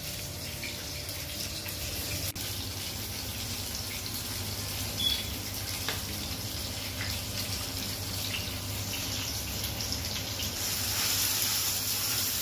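Masala-coated karimeen (pearl spot fish) shallow-frying in hot oil in a pan: a steady sizzle with a few scattered pops, growing louder about ten seconds in.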